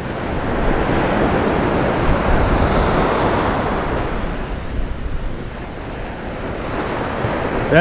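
Ocean surf washing in and breaking on the beach: a steady rush of foaming water that eases a little partway through and builds again.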